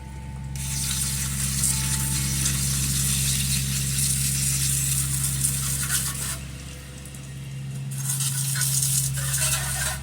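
Garden hose spraying water onto a small Tecumseh HH120 engine to wash out a mouse nest: a steady hissing spray that eases off about six seconds in and picks up again about two seconds later, over a steady low hum.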